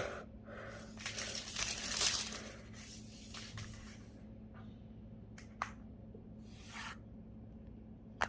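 Rustling, crinkling noises, loudest about one to two seconds in, followed by a single light click and a short rustle near the end.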